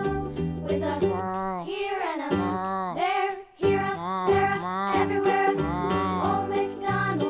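Children's background music with a steady beat and a sung or gliding pitched line, breaking off briefly about three and a half seconds in.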